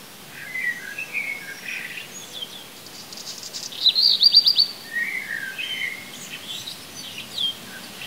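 Songbirds singing: short warbling phrases, with a fast trill of about six quick notes a little before the middle that is the loudest part, over a steady faint hiss.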